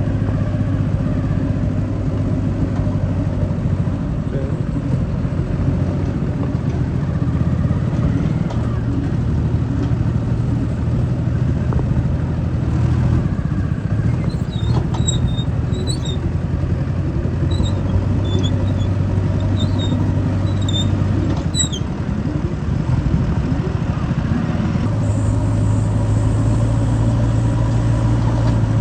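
Diesel engine of a JCB backhoe loader at work. Its speed shifts up and down with the load, rising about 25 seconds in.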